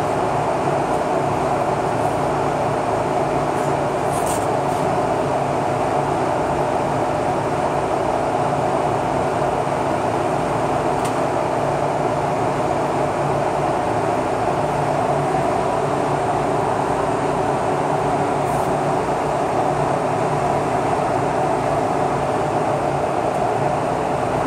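Steady mechanical drone with a low hum beneath it, even and unchanging, with a few faint ticks.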